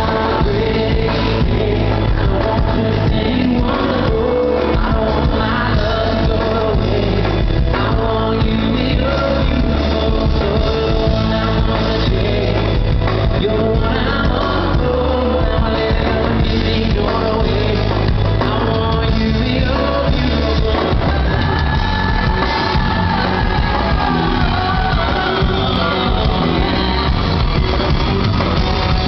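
Live pop band playing with a male lead singer on microphone, heard loud and continuous from the audience.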